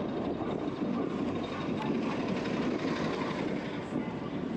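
Steady rumble of road and traffic noise with wind on the microphone, heard while riding a fixed-gear bicycle through city streets.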